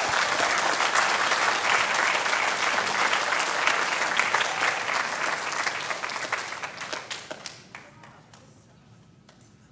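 Church audience applauding, a dense patter of many hands clapping that fades away near the end.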